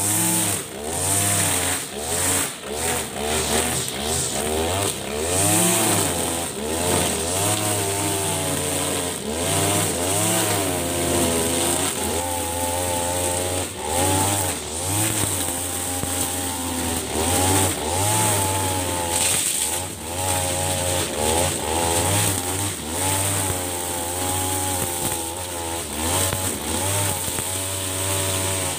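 Husqvarna 542RBS backpack brush cutter's 42cc two-stroke engine running hard as its nylon line cuts through thick, tall grass, the engine pitch repeatedly dipping and rising as the line bites into the grass and frees up.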